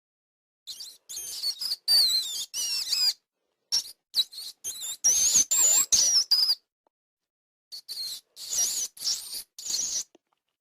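Rat squeaking: rapid runs of short, high, wavering squeaks in three clusters of a few seconds each, separated by brief silences.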